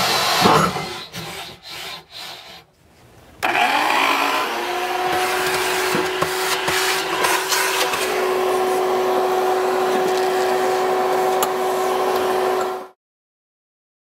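Cordless drill cutting through a countertop with a 1.5-inch hole saw. A few short stop-start bursts come in the first three seconds, then a steady cut with a motor whine that cuts off suddenly about 13 seconds in.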